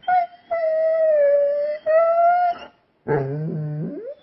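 A pet dog howling along on request, in three long, high, drawn-out notes with short breaks between them. Near the end comes a lower, rougher sound that rises sharply in pitch.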